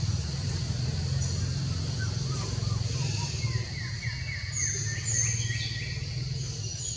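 A steady low rumble throughout, with bird chirps over it: a run of about five quick falling chirps in the middle and a few short high notes.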